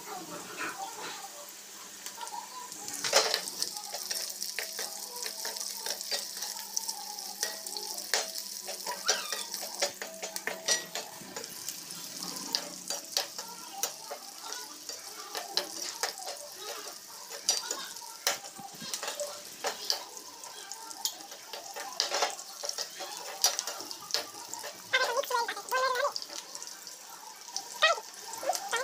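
Cubed potatoes and green chillies frying in oil in a pan with a steady sizzle, while a steel spoon stirs them, scraping and clicking against the pan again and again.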